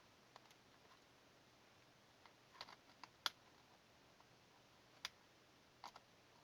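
Faint, scattered clicks and taps of a small screwdriver working a screw out of a plastic laptop case, about seven in all, the sharpest about three seconds in.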